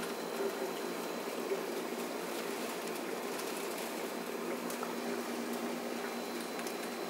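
Heavy rain falling steadily in a downpour, with scattered faint drip taps.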